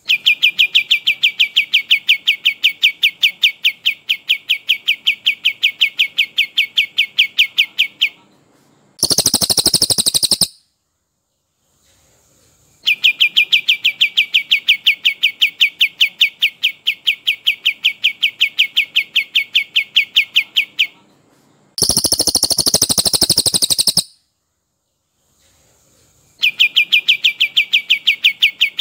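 Two recorded songbirds, a cililin and a kapas tembak, singing in turn: a long rolling trill of rapid, evenly repeated notes, about five a second, runs for about eight seconds, then a short, dense, higher-pitched burst of song follows. The pattern repeats twice, and a third trill begins near the end.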